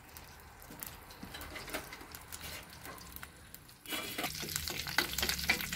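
Curry leaves spluttering and crackling in hot coconut oil in a clay pot. About four seconds in a metal ladle starts stirring them, and the sizzling gets louder and denser.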